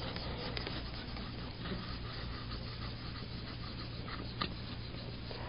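Faint handling noise: soft rustling with a few light clicks scattered through it, over a steady low hum.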